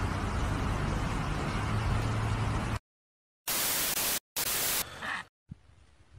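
Steady low rumble with hiss that cuts off dead. After a moment of silence come two short bursts of loud TV-static hiss, a glitch transition effect, and then a faint background.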